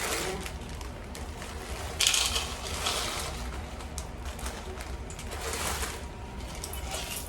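A bag of frozen corn being handled and poured out: crinkly rustling and the rattle of hard kernels, in bursts about two seconds in and again near the end.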